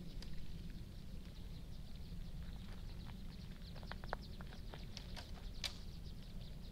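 Spinning reel being cranked close to the microphone, its gears and bail giving a quick run of small high ticks that grows busier after a couple of seconds, with one sharper click near the end. A low steady rumble runs underneath.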